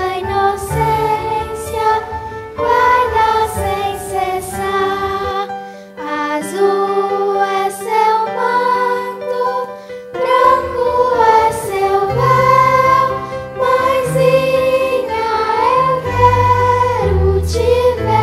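Children's choir singing a Marian hymn in Portuguese, with a sustained low accompaniment underneath.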